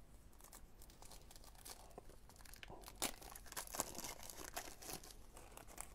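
Faint rustling and crinkling of trading cards being handled and shuffled, with a cluster of sharper flicks and crackles in the middle.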